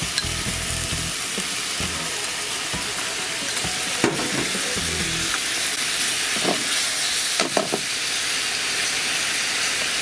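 Pork belly slices and freshly added miso-based sauce sizzling in a nonstick frying pan as the meat is stirred and turned with chopsticks. The sizzle is steady, with a sharp click about four seconds in and a few brief knocks later.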